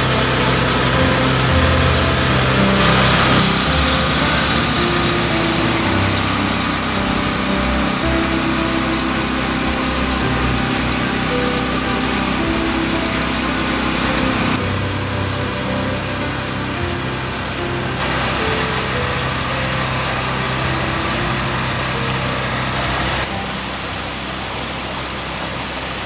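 Portable petrol generator powering electrofishing gear, its engine running steadily with a low hum and a wash of noise that shifts in tone a few times.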